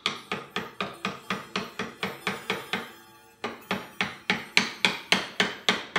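Small hammer tapping brads into a wooden pillar of a grandfather clock case, about four light taps a second. This is the original brads being driven back in to reattach the loose pillar. The tapping pauses briefly about halfway through, then resumes louder.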